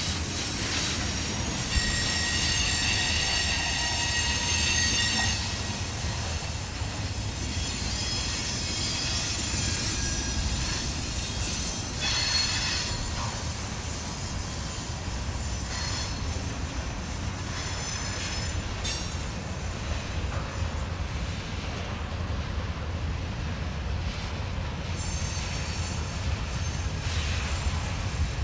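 Freight cars, tank cars and covered hoppers, rolling slowly past with a steady low rumble of wheels on rail. High-pitched wheel squeal comes and goes several times.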